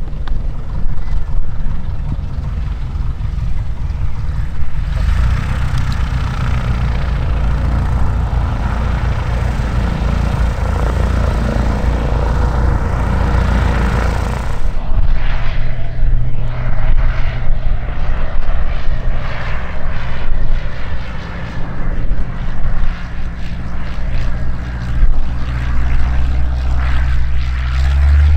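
Single-engine Piper Cub light aircraft running at high power through its takeoff and low climb-out: a steady propeller-and-engine drone. It is fullest for the first half, then swells and dips unevenly in the second half.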